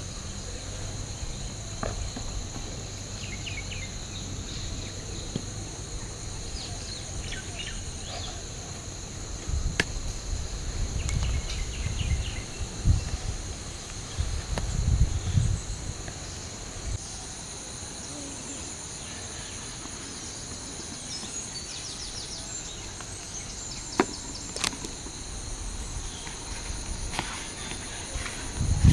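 Steady high-pitched drone of insects, with short chirps now and then. Through the middle, low rustling and knocking of hands working in a plastic basin, with a few sharp clicks.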